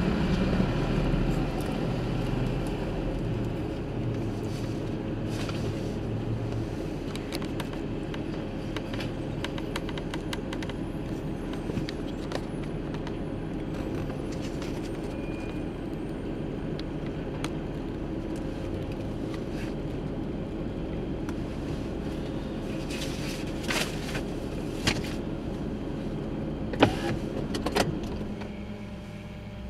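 Rear-loading garbage truck running while it compacts trash: a steady engine and hydraulic drone, louder in the first few seconds, with scattered metal clicks and clanks from the hopper. Several louder bangs come near the end, and then the drone drops off.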